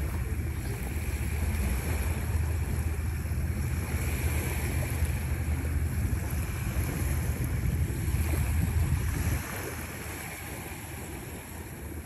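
Wind rumbling on the microphone over a steady wash of surf at the shore. The wind rumble drops away about nine seconds in.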